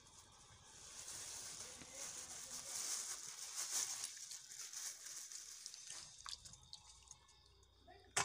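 A plastic bag crinkling and water splashing as small fish are tipped from the bag into a steel bowl of water, loudest midway; then quieter swishing of the fish in the water, with a sharp click just before the end.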